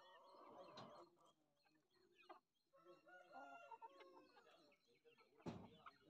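Faint clucking and calls of chickens, with a short sharp click near the end.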